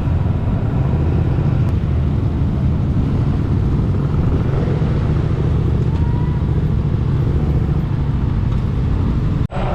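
Motorcycle running along the road: a steady low rumble of engine and road noise, which cuts out for a moment near the end.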